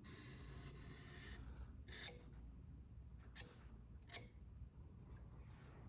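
Faint felt-tip marker rubbed along a steel knife blade's edge bevel for about a second and a half, inking the bevel so the sharpening stones will show where they cut. Then a few soft clicks.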